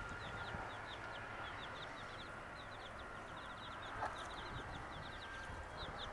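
Baby chicks peeping continuously: many short, high, falling peeps, several a second. A brief knock sounds about four seconds in.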